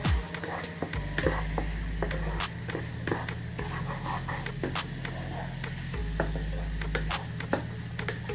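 Wooden spatula stirring a simmering sauce in a nonstick frying pan, with irregular clicks and scrapes of the spatula against the pan over a light sizzle. A low, steady hum runs underneath and shifts level a few times.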